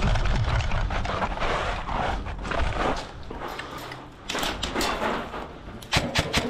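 An airsoft player moving in gear, with rustling and footfalls, then short runs of sharp snaps about four and six seconds in.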